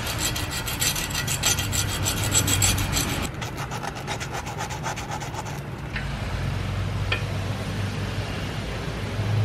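Top piston ring's end being filed by hand with a flat file: quick, even rasping strokes that grow fainter after about three seconds and stop about six seconds in. The ring end is being taken down to open the end gap to 22 thousandths.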